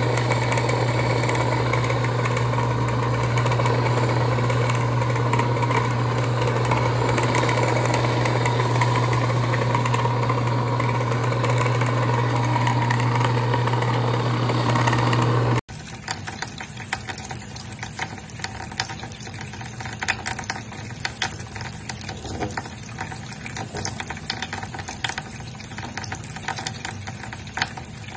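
Handheld hair dryer running steadily, a motor hum under a wide rush of blowing air, as it is held over a long-haired cat. About halfway through it cuts off abruptly, and a quieter crackling noise follows.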